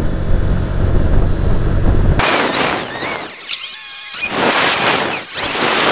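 Motorcycle running along the road with wind on the microphone, a dense low rumble. About two seconds in it cuts off suddenly and background music with gliding, whistle-like tones takes over.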